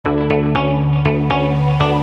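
Background music: held pitched tones with a new plucked note struck about every quarter to half second.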